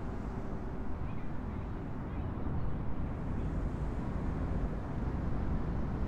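Steady low rumble of distant road traffic, slightly louder from about halfway through.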